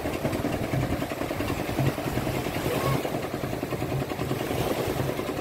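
Engine of a small wooden tourist boat running steadily, with a low pulsing note, as the boat moves through the shallows; small waves wash over the sand underneath.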